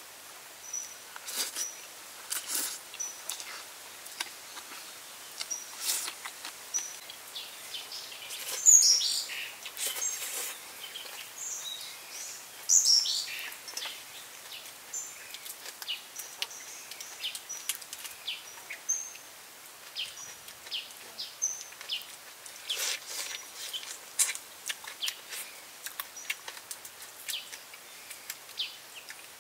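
Cooked prawns being broken apart and their shells peeled by hand: irregular crisp crackles and snaps, loudest twice in the middle. Short high bird chirps repeat throughout.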